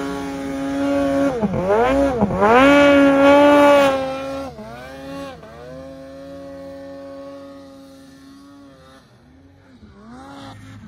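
Mountain snowmobile engine revving hard under load in deep powder. Its pitch dips sharply twice and climbs back about a second and a half to two seconds in, and it is loudest about three to four seconds in. It then turns quieter, with the throttle rising and falling as the sled pulls away.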